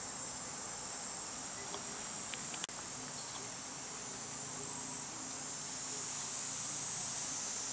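Steady, high-pitched insect chorus trilling without a break, with a sharp click a little over two and a half seconds in.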